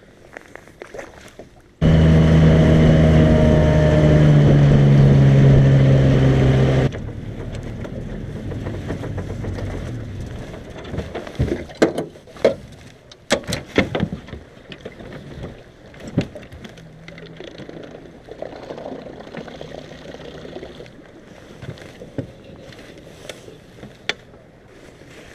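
A boat motor runs loudly and steadily for about five seconds, starting and stopping abruptly, followed by scattered knocks and clicks on the boat over a fainter hum.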